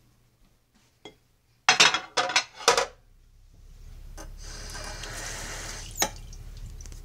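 A plate set down in a kitchen sink, clattering against a glass dish in a quick run of knocks. Then tap water runs, loudest for a couple of seconds, and eases to a lower steady rush after a sharp click about six seconds in.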